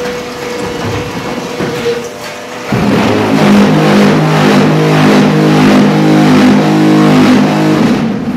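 Automatic concrete block-making machine running: a steady motor whine with knocks, then about three seconds in a much louder, pulsing mechanical buzz starts and holds for about five seconds before dropping away near the end, typical of the mould's vibration cycle compacting the concrete.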